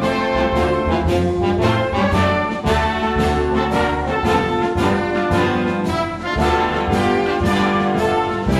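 Bugle band music: bugles playing a tune over a steady beat of about two strokes a second.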